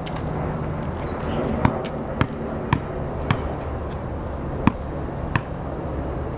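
A basketball bounced by hand: six sharp thuds, four about half a second apart, then two more spaced further out.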